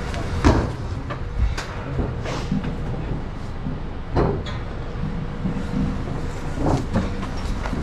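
Irregular knocks and thuds of footsteps and hands on construction scaffolding as people climb through it, five or so sharp hits a second or two apart, over a steady low rumble.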